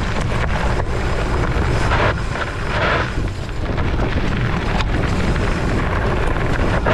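Loud, steady wind rumble buffeting a bike-mounted camera microphone while riding, over the hiss and crunch of fat tyres rolling on a gravel path. The noise swells briefly about two to three seconds in.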